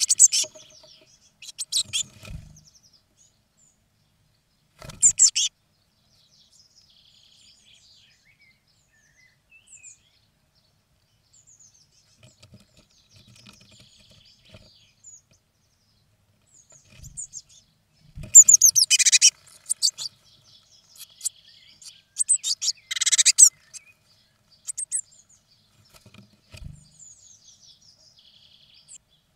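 Blue tit chicks inside a wooden nest box calling in loud bursts of high, rapid chirps, the longest burst coming about two-thirds of the way in, with fainter chirps between. A few low thumps come as the birds move about in the box.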